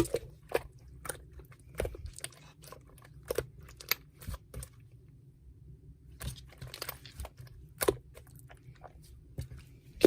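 Slime being squeezed and pressed, making irregular crisp clicks and pops as air pockets burst, with a pause of about a second and a half midway.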